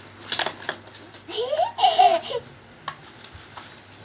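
A few light clicks, then a short laugh-like vocal sound whose pitch rises and falls.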